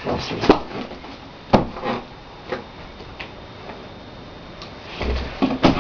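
A few scattered knocks and clicks of objects being handled and set down on a hard surface, with a duller thump near the end.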